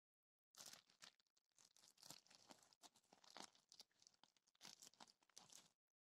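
Faint, irregular crinkling of clear plastic wrapping as hands handle the sealed display and the small figure lying on it. It starts about half a second in and stops shortly before the end.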